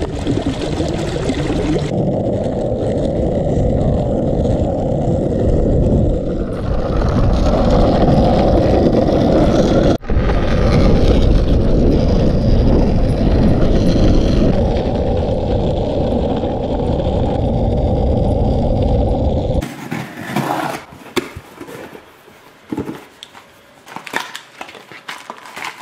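Loud, steady rumbling and scraping noise from movement outdoors on a paved path. About twenty seconds in it cuts off and gives way to quieter rustling and clicking as a cardboard box is handled.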